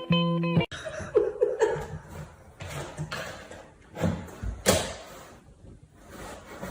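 Plucked guitar music cuts off under a second in, followed by scattered knocks, bumps and rustling in a small room, the sharpest knock just before five seconds in.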